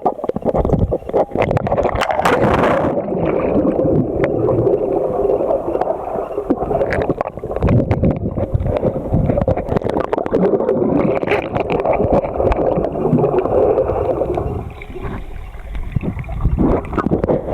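Water gurgling and sloshing, heard muffled through a waterproof camera dipped in the lake, with many small knocks and bubbling clicks; it turns duller about three seconds in, as the camera goes under.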